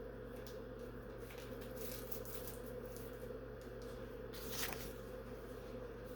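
Faint rustling and handling of neoprene seat belt covers, with one louder brief rustle about four and a half seconds in, over a steady low hum.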